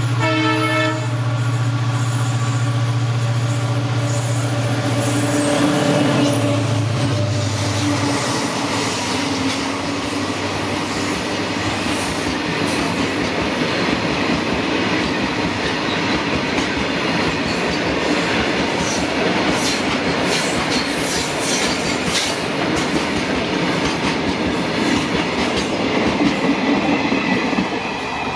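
An EMD WDG4 diesel-electric locomotive passes close by: its horn ends about a second in, and its two-stroke V16 engine drones under load, dropping in pitch around six seconds as it goes by. Then the BOBYN hopper wagons roll past with a steady rumble and wheels clicking over rail joints, until the rake clears near the end.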